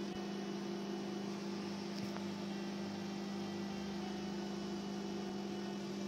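Microwave oven running mid-cycle with a steady hum, roasting a papad.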